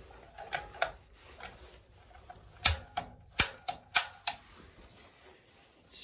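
Sharp clicks from the gas control of a Bradford White water heater's millivolt gas valve being worked to light the pilot: a few soft clicks in the first second and a half, then about five louder ones in quick succession from about two and a half to four and a half seconds in.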